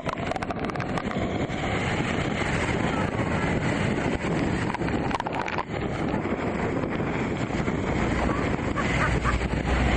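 A motorboat running through river rapids, its engine blending with rushing whitewater and wind buffeting the microphone. There are a few sharp knocks in the first second or so, and a deeper rumble rises near the end.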